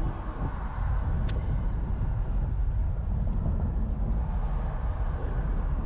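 Wind rush and road noise in an open-top Mustang convertible driving with the top down: a steady, heavy low rumble of wind buffeting the microphone.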